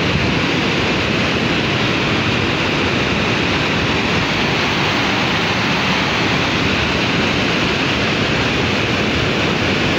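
Fast, muddy floodwater rushing past in a torrent: a loud, steady rush of churning water.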